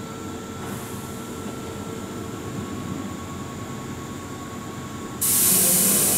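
Keihan 6000-series electric train pulling slowly into a station platform, its wheels and running gear giving a steady low rumble with faint steady tones. About five seconds in, a sudden loud hiss of air lasts for about a second.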